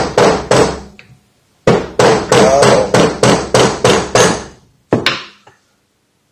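Rubber mallet hammering an extension bar set on the lip of an old fork seal to drive it out of the fork leg: quick strikes about three a second, in two runs with a short pause about a second in, and a last pair near the end.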